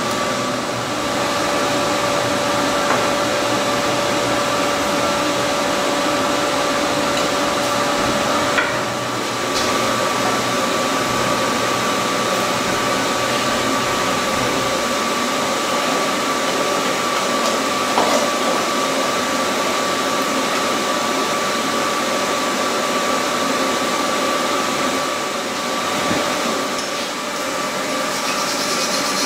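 Steady whoosh of a forge's air blower with a thin motor whine, with a couple of brief knocks about a third and two thirds of the way through.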